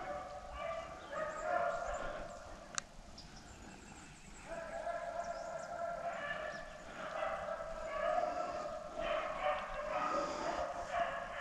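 A pack of rabbit hounds baying together, the sound of dogs in full cry running a rabbit's trail. The voices drop back briefly about three seconds in and then swell again, with one sharp click in the lull.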